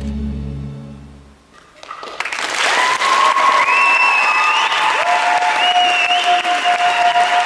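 The dance music fades away over the first second and a half. From about two seconds in, the audience breaks into loud applause and cheering that carries on steadily.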